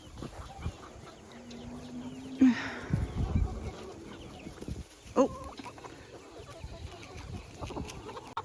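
Chickens clucking and calling, with a short squawk about five seconds in and a few low bumps.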